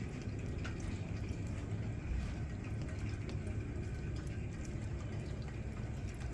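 Wind buffeting the microphone in a steady low rumble, with faint scattered light ticks throughout.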